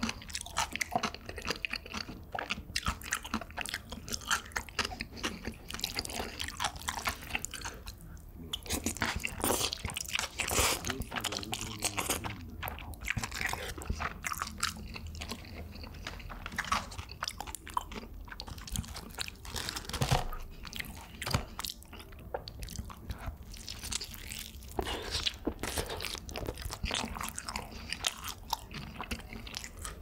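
Close-miked eating: crunchy bites of food and chewing, a steady run of irregular crackling clicks.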